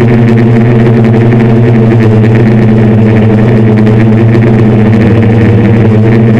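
Six 750Kv brushless motors spinning 10-inch APC propellers on a DJI F550-style hexacopter in flight, heard from a camera mounted on the craft: a loud, steady hum.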